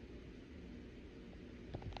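Faint steady hiss with a low hum underneath: background noise, with a couple of small clicks near the end.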